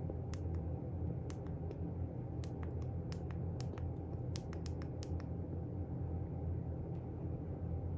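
A run of about fifteen small, sharp clicks at uneven spacing over the first five seconds or so, then stopping, over a steady low hum.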